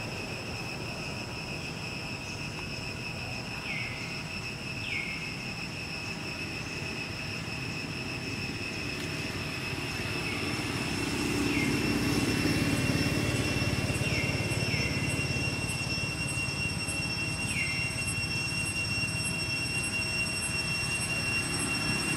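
Outdoor ambience: a steady high-pitched insect drone, with a low vehicle-like rumble that grows louder about halfway through and a handful of short falling chirps.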